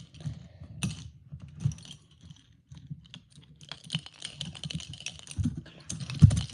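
Metal handcuffs clicking and rattling as they are handled, quick small metallic clicks and jingles with a few dull knocks, the loudest near the end.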